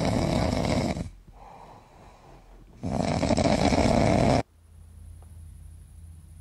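A dog snoring, two long snores about three seconds apart.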